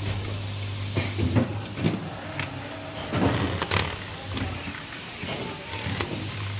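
Corded electric screwdriver driving the terminal screws of a plastic pump pressure controller, with short clicks and knocks as the parts are handled, over a steady low hum.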